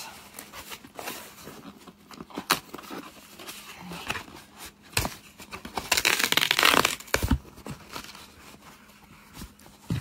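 Hands opening a cardboard shipping box: scattered taps and scrapes of fingers on cardboard, with a loud tearing rip about six seconds in that lasts about a second.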